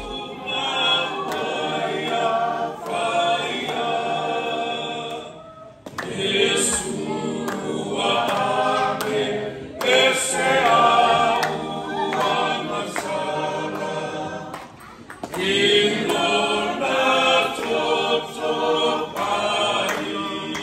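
A group of voices singing a worship song unaccompanied, in long phrases with short breaks about six seconds in and again near fifteen seconds.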